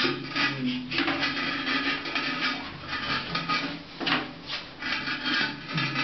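Rough scraping in repeated strokes, a few a second, as the ceramic toilet bowl's base is worked loose from the tiled floor.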